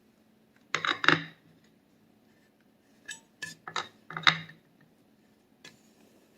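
A utensil clinking and scraping against dishes while caramel icing is spread on a cake: a short cluster about a second in, then several sharp clinks between about three and four and a half seconds.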